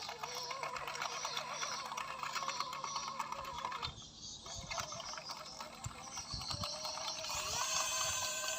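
A 1/14-scale RC bulldozer's drive motors and gearing whining as it works, with a light clicking rattle from the tracks and gears. The whine wavers in pitch and rises to a higher pitch about seven and a half seconds in, as the motors speed up.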